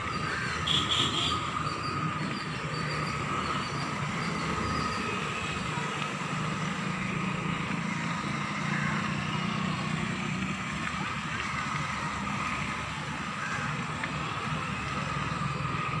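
Outdoor ambience: a steady hiss with the low hum of a vehicle passing on the road, and a few short high chirps about a second in.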